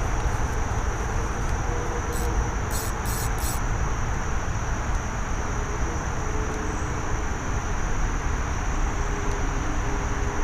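Steady high-pitched chirring of night insects such as crickets, over a constant low rumbling hiss. A few short, sharp clicks come about two to three and a half seconds in.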